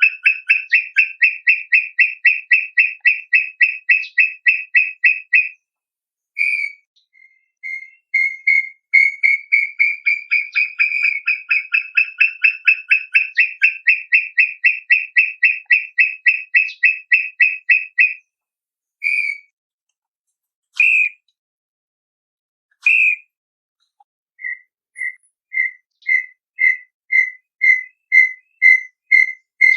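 Brown tinamou singing: a long run of rapid whistled notes, about four or five a second, then a second run that rises slightly in pitch. Single notes come between the runs, and near the end a slower series of notes starts and speeds up.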